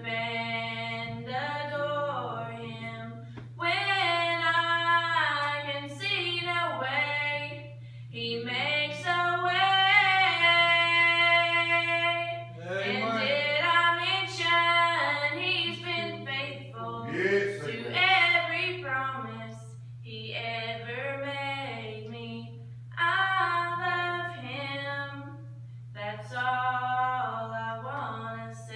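A woman singing a worship song solo, in sung phrases a few seconds long with short breaks between them, over a steady low hum.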